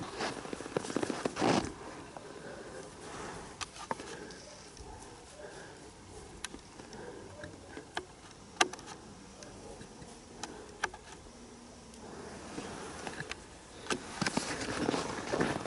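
Scattered footsteps and light clicks with soft rustling, the steps growing louder and more continuous near the end.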